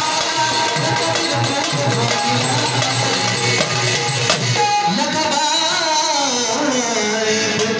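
Dholki drum playing a steady quick rhythm with jingling percussion in a folk song. About five seconds in, the drumming drops back under a long, bending melodic line, likely the singer's voice.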